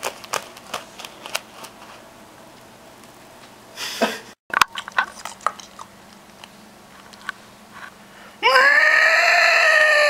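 Soft handling clicks and rustles, then, about eight and a half seconds in, a person's long, loud scream on one held high note that rises at first and then slowly sinks.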